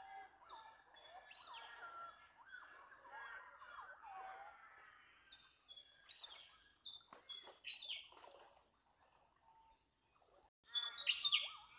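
Small birds singing and chirping: many short, overlapping whistled calls and trills, with a louder burst of high chirps near the end.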